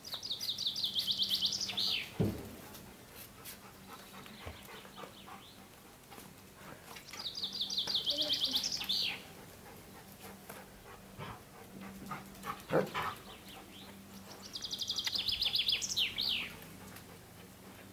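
A songbird sings a short, fast trill of high notes ending in a quick flourish, three times about seven seconds apart. A few short knocks and clicks come between the phrases.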